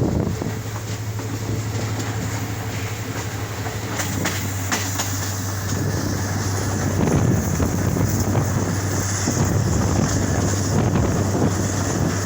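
Wind rushing over the microphone above a steady low hum, with a few sharp clicks about four to five seconds in.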